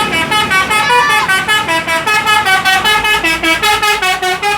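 Bus 'telolet' horn, a multi-trumpet musical air horn, playing a loud, fast melody of short notes, about six a second.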